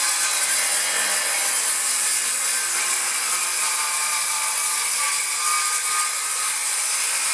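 Corded DeWalt circular saw ripping a 2x4 lengthwise, its blade cutting steadily through the wood at full speed as it is pushed along a guide rail.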